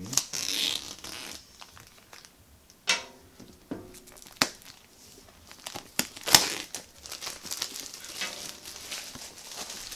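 Clear plastic shrink-wrap crinkling and tearing as it is pulled off a cardboard box, with a few sharp clicks and crackles along the way.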